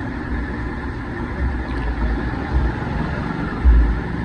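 Steady background noise with a low rumble that swells into a few short, dull thumps, the strongest near the end.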